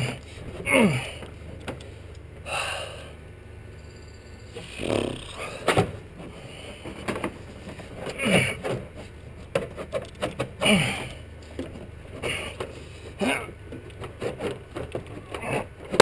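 A man breathing hard after a physical struggle, with about five voiced exhales or groans that fall in pitch, spaced a few seconds apart, plus a few sharp clicks and scrapes from handling the parts.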